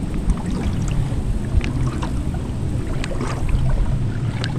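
Wind rumbling on the microphone while small waves lap and slap against the boat's hull, with scattered small splashes and ticks.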